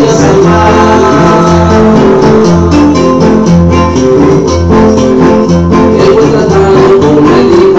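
Two acoustic guitars playing a corrido, with deep bass notes about once a second and strummed chords in between.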